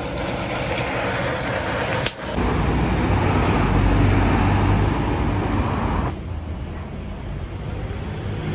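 Food sizzling on a flaming griddle for about two seconds, then a louder steady low hum with background noise, then quieter street background noise after about six seconds; the sound changes abruptly at each change of shot.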